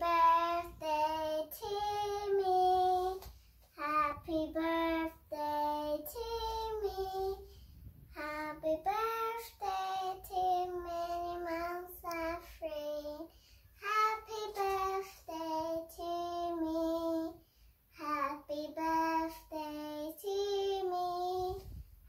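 A young girl singing a song alone without accompaniment, in a child's high voice, holding notes in short phrases with brief breaths between them.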